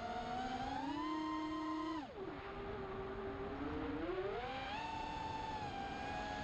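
XHover MXP200B FPV quadcopter's motors and propellers whining. The pitch climbs over the first two seconds, drops steeply just after two seconds in, then rises again about four seconds in and holds.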